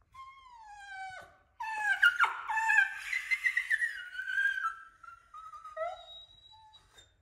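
Alaskan Klee Kai whining: a high whine that falls in pitch over the first second, then a louder stretch of wavering whining, trailing off into softer, shorter whimpers near the end.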